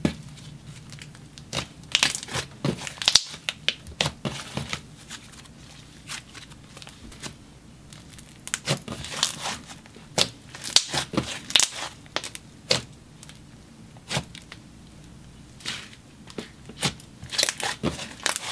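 Hands squishing, folding and stretching a float slime (clear slime with balls of cloud slime) that has been mixed into an icy slime, giving sticky crackles and pops. The crackles come in irregular clusters, thickest around two to three seconds in, again around nine to twelve seconds, and near the end.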